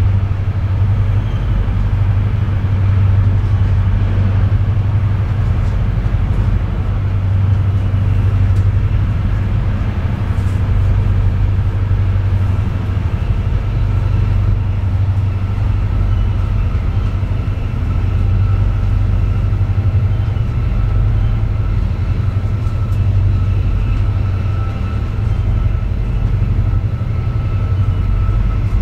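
Metronom double-deck regional train running at speed, heard from inside the coach: a steady low rumble with a faint high whine running over it.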